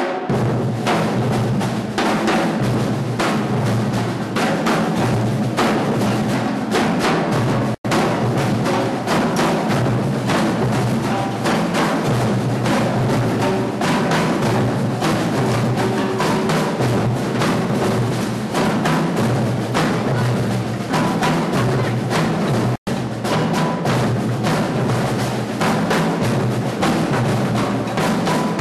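Drums played in a dense, continuous rhythm, with strong low drum tones under many quick strokes. The sound cuts out for an instant twice, about 8 and 23 seconds in.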